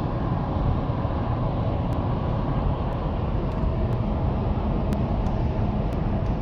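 Steady low rumble of a running vehicle, with faint ticks now and then.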